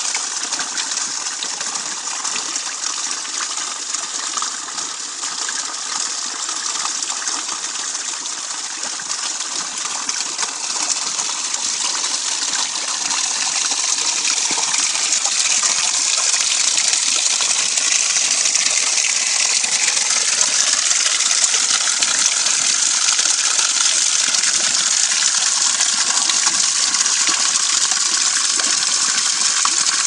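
Water from a natural fountain gushing and splashing steadily, growing louder about halfway through.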